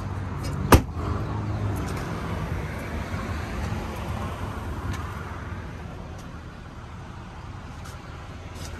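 The trunk lid of a 2006 Buick Lucerne slammed shut once, a sharp bang under a second in, followed by the steady rush of passing traffic that swells and fades.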